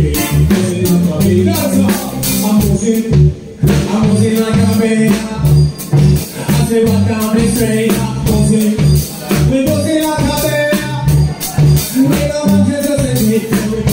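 Live band playing: electric keyboard, bass guitar and drums, with a steady beat and bass line. The band drops out briefly about three and a half seconds in, then comes back in.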